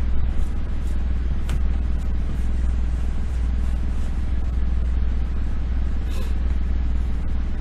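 Steady low hum of background noise, with a few short clicks about a second and a half in and again near six seconds.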